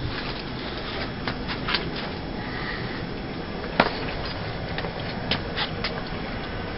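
Steady airflow noise of a Carrier air handler running, with a scatter of sharp clicks and knocks, the loudest about four seconds in.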